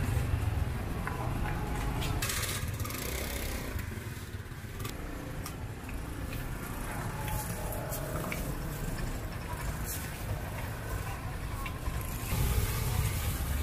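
Busy street background: a steady low rumble of traffic, with faint voices and a few scattered clicks.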